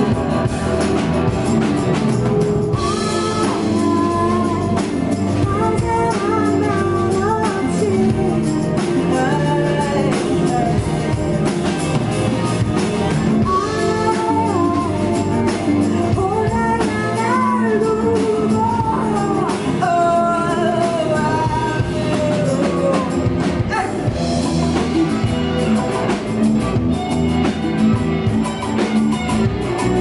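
Rock band playing live: a woman sings over electric guitar, electric bass and drums. Her voice drops out a little past two-thirds of the way through and the band plays on without vocals.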